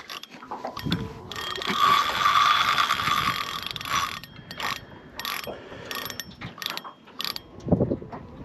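Fishing reel ratcheting in a fast, dense buzz for about three seconds, then a run of scattered clicks.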